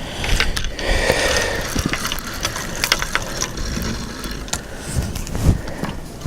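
Fishing reel being worked by hand: the clicking of its gears and ratchet, with scattered irregular clicks and knocks.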